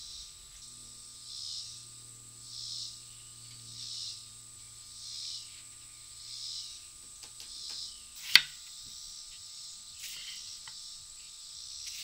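An insect calling in a steady rhythm, one high-pitched swelling call about every second and a bit. A kitchen knife cutting through a strawberry strikes the wooden cutting board with a sharp knock about eight seconds in and again at the end; the knocks are the loudest sounds.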